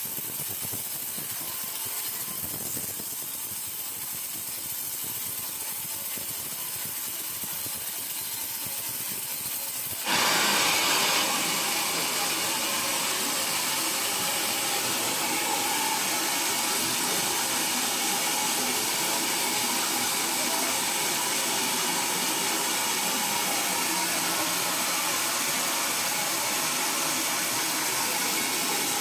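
Steady machine hiss. About ten seconds in, a louder, fuller steady rushing noise cuts in abruptly and runs on evenly.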